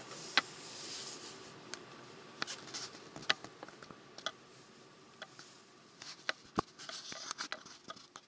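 Low steady road and engine noise heard inside a moving car's cabin, with irregular sharp clicks and taps, the loudest about a third of a second in, around three seconds in, and past six and a half seconds. The cabin noise fades toward the end.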